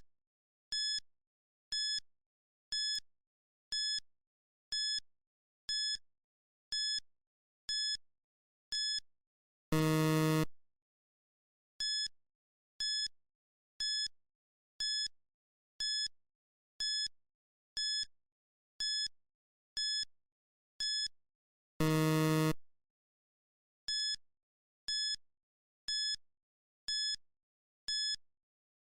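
Electronic countdown-timer beeps: one short, high beep every second. About ten seconds in and again about twenty-two seconds in, the beeps give way to a longer, lower buzz that marks the time running out.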